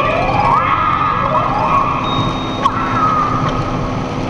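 Steady road and engine rumble inside a box truck's cab at highway speed, with smooth siren-like tones gliding over it: one rising in the first half second, another falling slowly around the middle.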